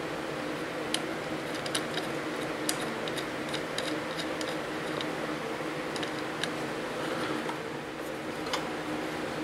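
Light metallic clicks and ticks at irregular intervals from the linkage of a homemade bandsaw blade sharpener cycled by hand: a wooden cam wheel turned against a spring-loaded pusher rod. A steady hum runs underneath.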